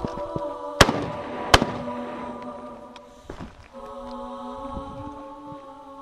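Two shotgun shots about three-quarters of a second apart, each with a short echoing tail, over choir-like background music.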